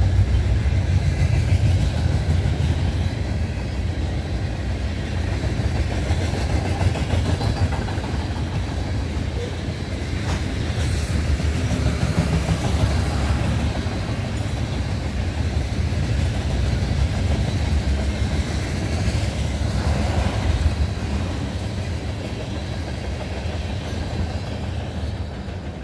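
Freight train's tank cars and covered hoppers rolling past on steel wheels, a steady rumble on the rails.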